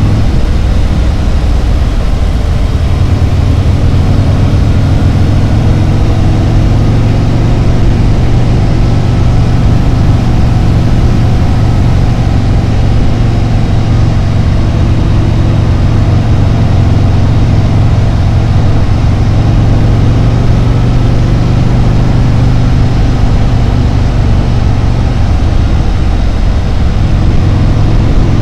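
Harley-Davidson Road Glide's V-twin engine running at a steady cruise while riding, a loud, even, deep drone.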